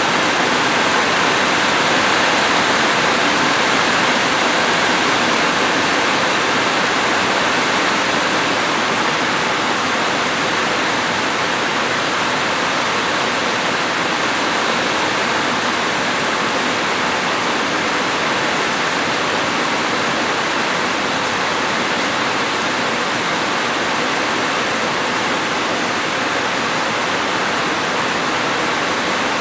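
Rain falling in a steady, even hiss that does not change, with no separate drops or thunder standing out.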